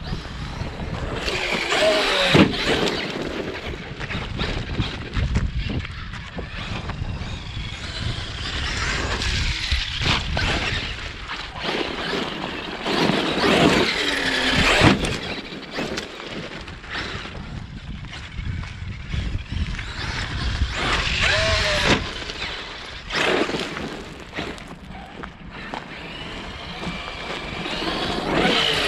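Traxxas X-Maxx RC monster truck's brushless electric motor whining up and down in pitch as it is driven hard, over a steady noise of its tires on loose gravel and dirt.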